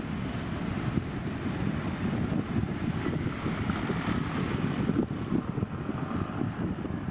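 Boeing 737 jet engines running, a steady low rumble with a faint whine in the middle.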